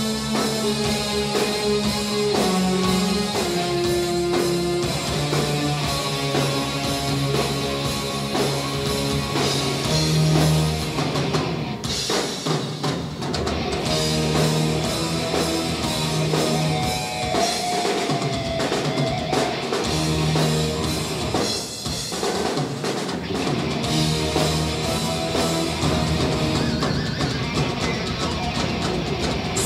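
Hard rock band playing live in an instrumental passage without vocals: drum kit with cymbals, distorted electric guitar and bass guitar.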